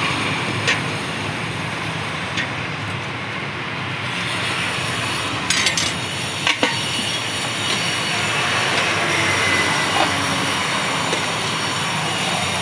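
Steady street-traffic noise, with a few short, sharp clinks of a steel ladle against a steel pot as curry is served.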